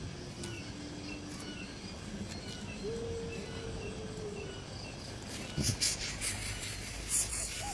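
Outdoor nature ambience: faint, evenly repeated high chirps and two long, low whistled calls. About five and a half seconds in, a burst of rustling and clicking takes over.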